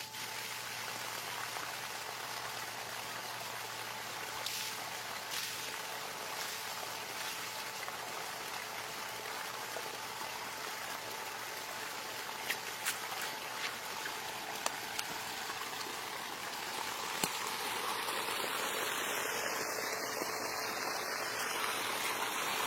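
Water gushing and splashing steadily from a homemade pump driven by a washing machine motor, with a faint steady tone underneath and a few sharp ticks; it grows slightly louder near the end.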